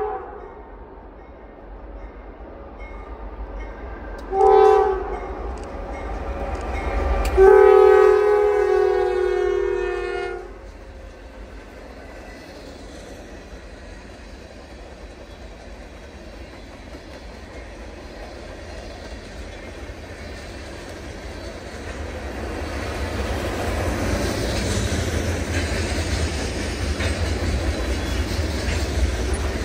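Diesel freight locomotive horn sounding a short blast and then a long one, the close of a grade-crossing horn signal. Then the low rumble of the train grows louder as it nears.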